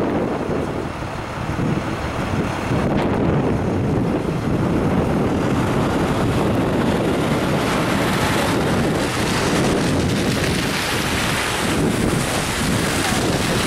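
Wind buffeting the microphone over a steady low rumble, the hiss growing stronger about halfway through.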